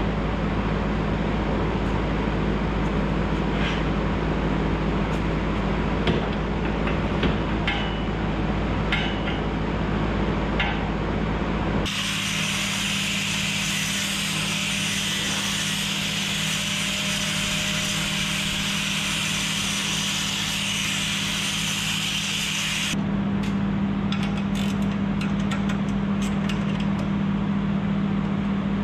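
Angle grinder grinding steel angle iron: a loud, steady high-pitched grind that starts about twelve seconds in and stops about ten seconds later. Before and after it there is a steady low hum with scattered clicks and knocks.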